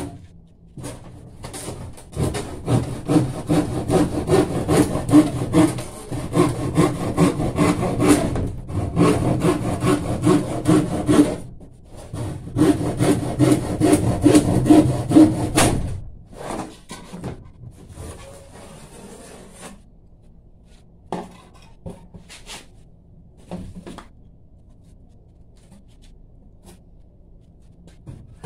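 Hand saw cutting through plywood in quick, rhythmic back-and-forth strokes, in three runs with short pauses. The sawing stops a little past halfway, leaving a few light knocks as the board is handled.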